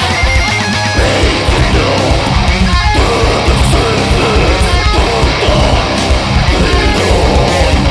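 Heavy metal band recording: distorted electric guitars and bass over busy, driving drums, steady and loud throughout.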